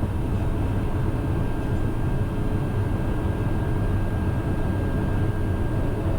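Socata TBM 910's Pratt & Whitney PT6A turboprop engine running at taxi power, heard from the cockpit: a steady drone with a faint constant high whine.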